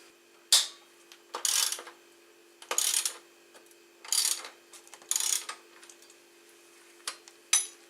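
Ratchet wrench loosening a motorcycle engine-mount bolt: about five short ratcheting strokes roughly a second apart, then a couple of light metal clicks near the end, over a faint steady hum.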